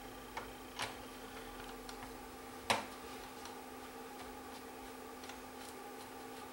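A few light clicks and taps from a screwdriver and screws handled against a VCR's chassis, the loudest about two and a half seconds in, over a faint steady hum.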